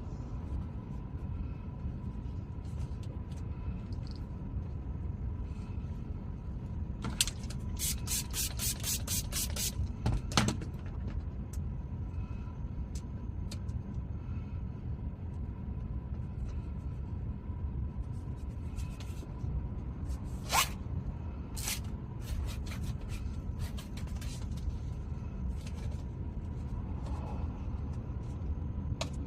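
Steady low rumble inside a car, with a quick run of about ten scratchy scraping strokes about seven seconds in and a few sharp clicks and scrapes later on.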